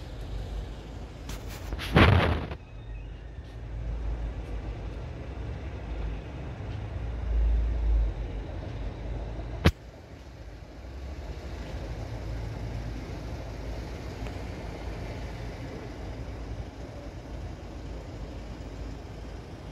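Low, uneven outdoor rumble, with a brief loud rush about two seconds in and a single sharp click near the middle.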